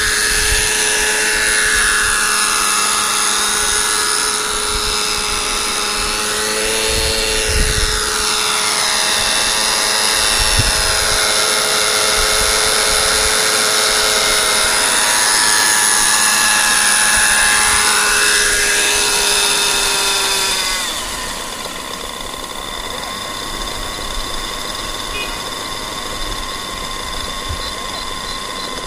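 Radio-controlled scale Bell 47G helicopter's smoking model engine and rotors running at flying power, the pitch rising and falling as it manoeuvres. About two-thirds of the way through the sound drops to a lower, quieter steady idle once the helicopter is down on the grass with its rotor still turning.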